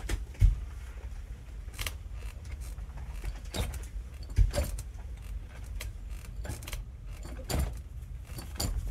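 Quiet room tone with a low steady rumble, broken by about half a dozen faint creaks and clicks, two of them with a soft low thump.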